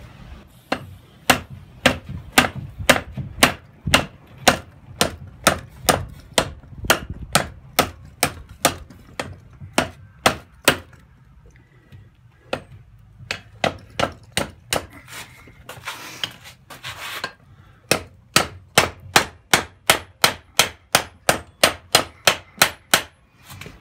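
Ball-peen hammer striking a red-hot steel bar over the edge of an anvil to bend it: a steady run of sharp blows about two a second. The blows stop for a few seconds near the middle, then another quicker run follows.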